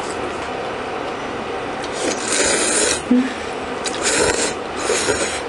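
Thin wheat noodles (somyeon) being slurped from bowls of soup: noisy sucking slurps about two seconds in and twice more near the end, over a steady hiss.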